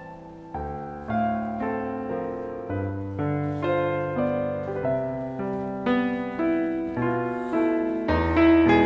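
Background score of slow piano music: single notes and chords struck about every half second, each one fading before the next.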